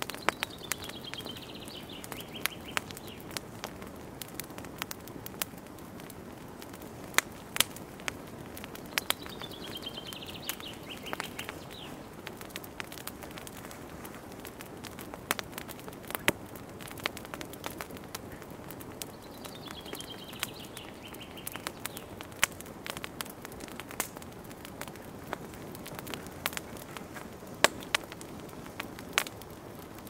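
A fire crackling, with sharp irregular pops over a steady hiss. A bird's call of quick high notes falling in pitch comes three times, about ten seconds apart.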